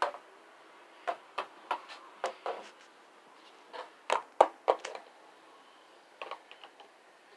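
Plastic toy wolf figurine tapping on a painted wooden porch railing as it is hopped along by hand: about a dozen sharp taps in quick clusters, with a few fainter ticks near the end.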